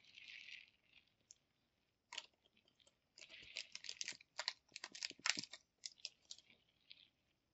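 Faint crinkling and clicking of small plastic parts and packaging as a lavalier mic's clip-on holder is taken out, with a quick scatter of small clicks and crackles from about two to seven seconds in.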